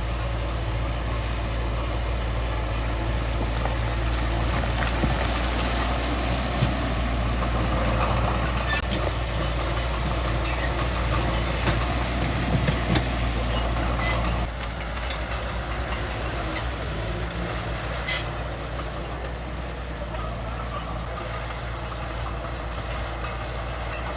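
Heavy diesel earthmoving machinery running steadily, with scattered clanks and knocks. The engine sound drops a step quieter about halfway through.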